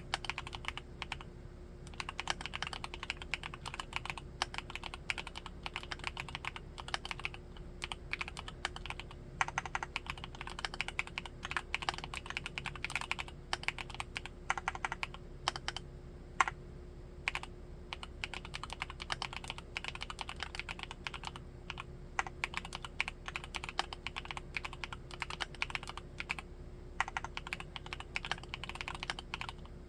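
Typing on a Luminkey75 mechanical keyboard with Gateron Baby Raccoon linear switches: fast, continuous keystrokes in runs, with a few brief slower stretches, over a faint steady hum.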